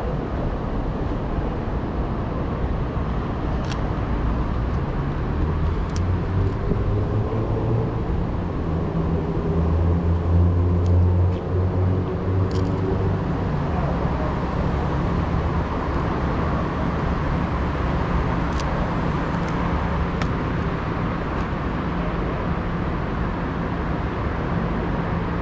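Street traffic: steady road noise with a vehicle engine running at a low hum that swells about ten seconds in, then holds steady. A few faint clicks sound now and then.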